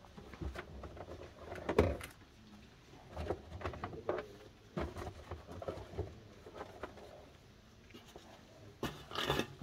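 Scattered knocks, bumps and rustling of bags and boxes being handled and moved in an open car boot, with a louder handling noise about two seconds in and another near the end.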